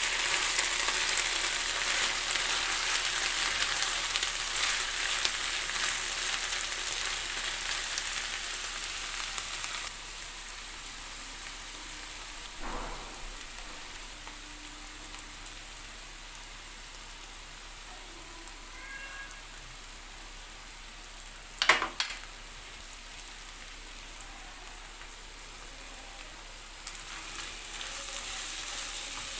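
Food frying in hot oil in a pan: a loud sizzle that falls to a quieter sizzle after about ten seconds and swells again near the end. A single short sharp knock sounds about two-thirds of the way through.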